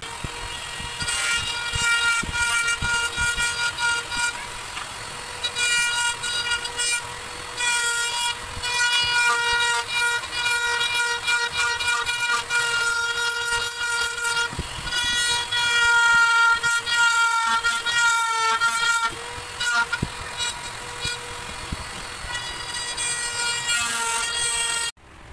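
Small rotary tool on a flexible shaft running at high speed and grinding a PVC plastic cut-out, a steady high whine with a harsher rasp that comes and goes as the bit bites the plastic. It stops suddenly near the end.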